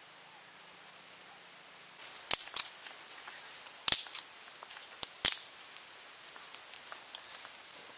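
Dry sticks of a small wood fire cracking and popping: four loud, sharp cracks starting about two seconds in, two of them close together a little after five seconds, with lighter ticks in between.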